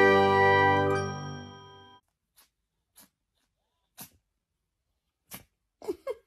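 A bell-like chime from an intro jingle rings out and fades away over about two seconds. Then there are a few faint clicks, and a handful of short squeaky vocal sounds near the end.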